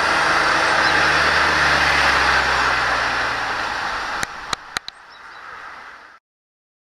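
Road traffic noise: a passing vehicle's tyre rush with a low engine hum that fades away. It is followed by a few sharp clicks, and then the sound cuts off abruptly.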